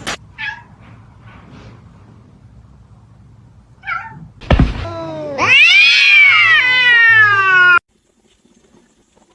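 A cat giving a loud, drawn-out meow that rises and then falls in pitch and cuts off abruptly. It comes after a thump and a couple of short, faint cat calls.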